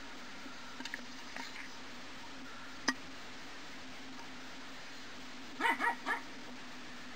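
Small dog barking three quick times about five and a half seconds in, over a steady low hum, with a single sharp click a few seconds earlier.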